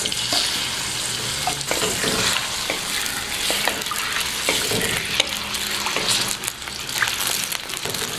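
Chicken pieces stirred with a wooden spatula in an iron karahi of oil: a steady, gentle sizzle, with scattered knocks and scrapes of the spatula against the pan. The oil was cold when the chicken went in and is only now heating.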